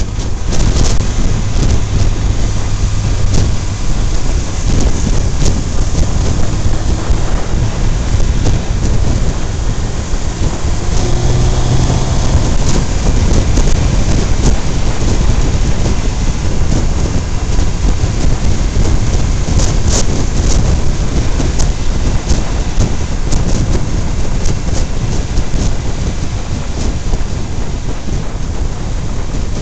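Heavy wind buffeting and road rush on the microphone of a camera mounted low on a moving vehicle, a steady rumbling roar, with a faint engine hum underneath.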